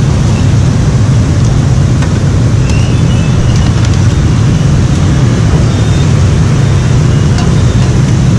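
Fish-cake strips frying in a wok of hot oil: a steady sizzle over a loud low rumble, with a few light clinks of the metal strainer and ladle.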